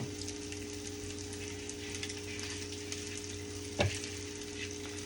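Chicken patties frying in a pan: a steady sizzle with light crackling, over a low steady hum. There is one sharp click or knock about four seconds in.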